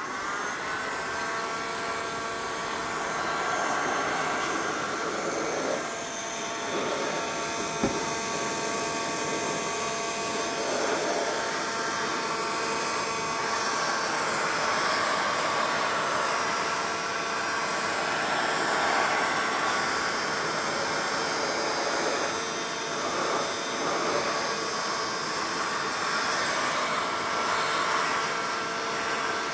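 An electric heat gun, a SKIL, running steadily, its fan motor whining with several steady tones. It is blowing hot air over a headlight housing to reheat it and soften the sealant before the lens goes back on. There is a brief click about eight seconds in.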